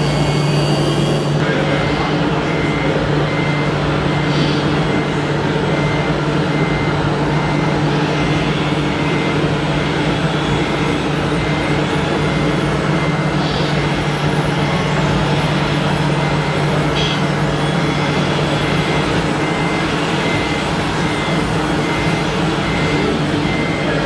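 Steady electronic engine drone from RC construction models' sound modules, with a reversing beeper pulsing on and off throughout.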